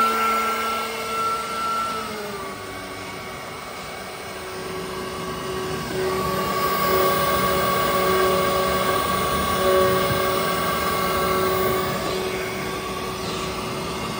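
CNC router with a 6 kW water-cooled HSD spindle running a test program: the spindle whines at speed, the pitch dropping about two seconds in, then holding steady while other motor tones come and go.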